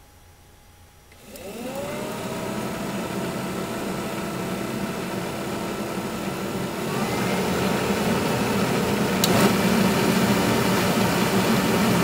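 Newly installed aftermarket HVAC blower motor of a 1989 Buick LeSabre switching on about a second in: its whine rises as it spins up, then settles into a steady hum that grows louder about seven seconds in, with a sharp click near nine seconds. It runs smoothly with little vibration, the sign that the replacement motor works.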